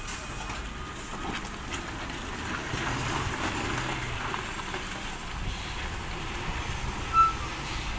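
Loaded heavy goods truck's diesel engine running at low speed as it pulls through a tight hairpin bend, with tyre and road noise. A brief high tone sounds near the end.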